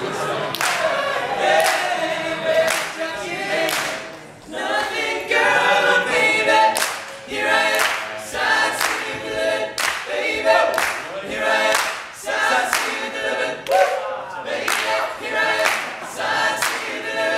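An a cappella vocal group singing an upbeat song live, with a sharp hit on the beat about once a second.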